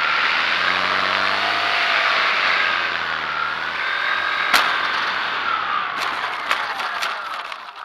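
Wind rushing past the airframe of a Top RC GeeBee R3R model plane as it comes in low to land, with a faint motor tone wavering in pitch. A single sharp knock about four and a half seconds in, then a cluster of knocks from about six seconds as the wheels touch down and roll on grass.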